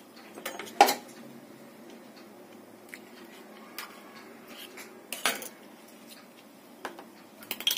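Metal kitchen utensils and pots clinking and knocking: a few separate sharp clinks, the loudest about a second in, with more around five seconds in and near the end.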